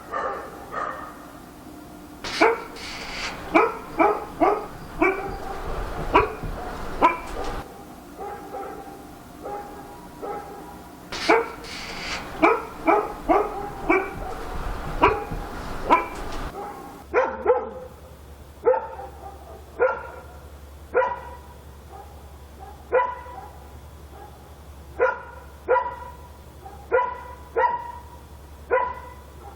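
A dog barking repeatedly: two runs of quick barks, then single barks at roughly one-second intervals.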